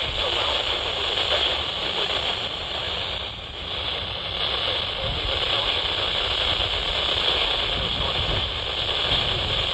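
Weather radio receiver putting out a steady static hiss, dipping briefly about three and a half seconds in.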